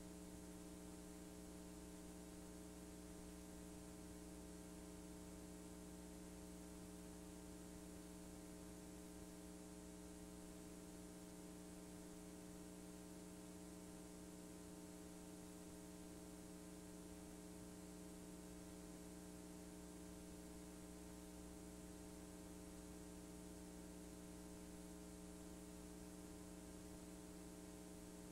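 Near silence: a steady mains hum with faint hiss, unchanging, as on a blank stretch of a digitised VHS-C tape.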